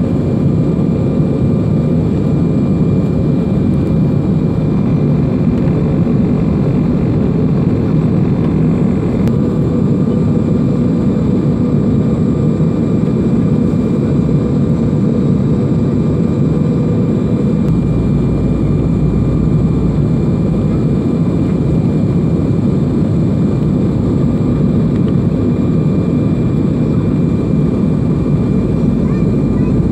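Steady airliner cabin noise on the landing approach: a loud, even rush of engines and airflow heard from inside the passenger cabin, with a few faint steady whining tones over it. A deeper rumble comes in a little past halfway.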